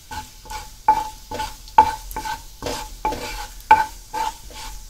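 Wooden spatula stirring and scraping cumin seeds around a non-stick pan in hot oil, in quick short strokes about four a second, over the sizzle of the frying seeds.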